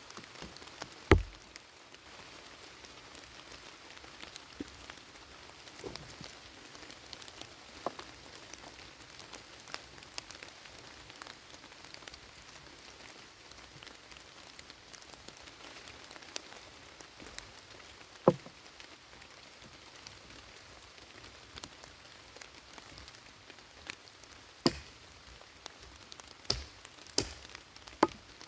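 Steady rain falling, an even hiss, with a few sharp knocks scattered through it: a loud one about a second in, another about two-thirds of the way through, and several close together near the end.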